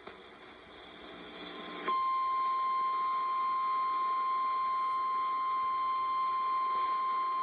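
Emergency Alert System attention signal: after about two seconds of faint hiss, a single steady high-pitched alert tone comes in and holds unbroken. It is the alarm tone that precedes a severe thunderstorm warning message.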